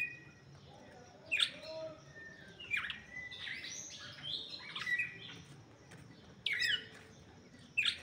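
Red-cowled cardinal (galo-de-campina) giving short, sharp chip calls a few seconds apart, with a spell of softer twittering in the middle.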